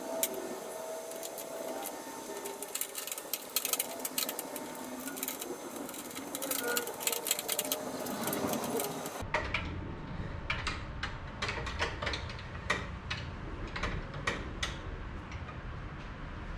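Irregular metallic clicks and taps of a hand screwdriver working Torx T25 screws out of a motorcycle's rear bodywork.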